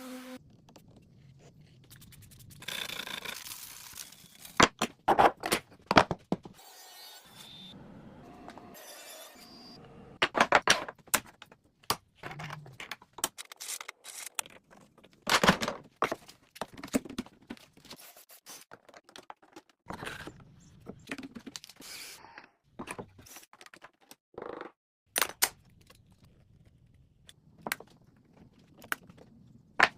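Intermittent knocks, clatters and scrapes of wood being handled and worked by hand, irregularly spaced with short quiet gaps.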